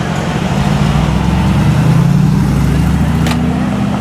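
Mercedes-AMG G63's twin-turbo V8 running under light throttle as the car moves off, swelling to its loudest about two seconds in and rising slightly in pitch near the end.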